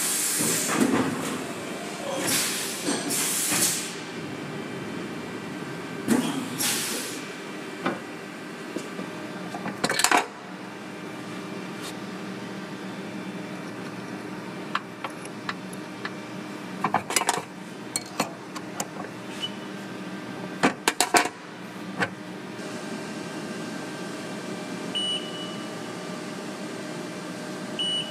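Steady hum of a CNC milling machine with scattered sharp metallic clicks and knocks as tools are fitted into holders and set up in the machine. A few longer rushing sounds come in the first seven seconds, and the clicks bunch up in the middle.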